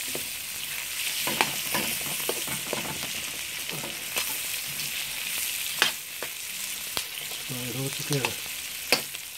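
Sliced onions and garlic sizzling in hot oil in a steel wok, stirred with a metal spoon that scrapes and clicks against the pan several times.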